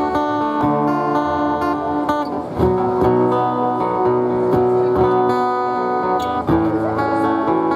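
Live band playing an instrumental passage: strummed acoustic guitar over electric guitars, with drum hits keeping the beat.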